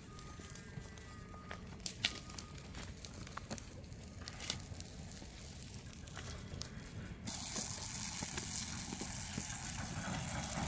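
Scattered sharp knocks and clicks, with a few short bird chirps, over a low rumble. About seven seconds in, a steady rushing hiss sets in abruptly and stays.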